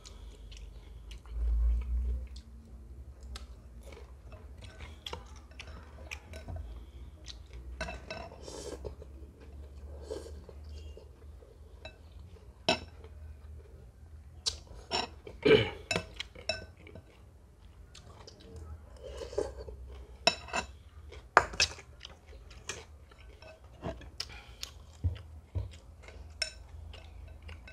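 Close-up eating sounds of a man chewing Khmer rice noodles (num banh chok) and fresh greens, with sharp clinks of a metal spoon and chopsticks against ceramic bowls scattered throughout. There is a low bump about two seconds in.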